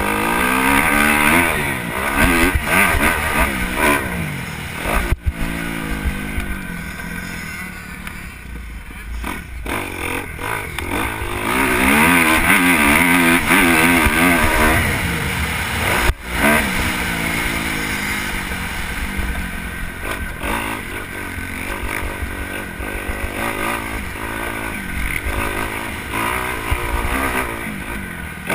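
Dirt bike engine on a motocross track, revving up and falling back over and over as the rider accelerates and rolls off, over a heavy low rumble.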